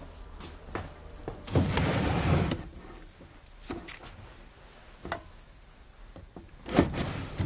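A wooden dresser drawer pulled open with a scraping slide lasting about a second, followed by a few small knocks as things inside are handled, and a louder knock near the end.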